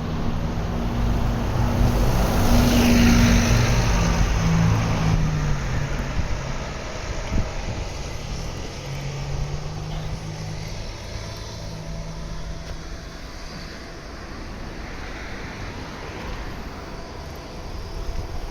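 A motor vehicle passes close by, its engine hum and tyre rush swelling to a peak about three seconds in and then fading. A quieter engine hum follows over steady traffic noise.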